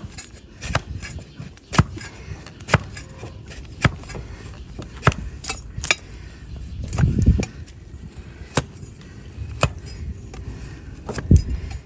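Broad-bladed hoof-paring knife shaving horn from a donkey's hoof sole, each stroke a crisp click, roughly one a second, with a quicker run of three around the middle. A duller low thump comes about seven seconds in.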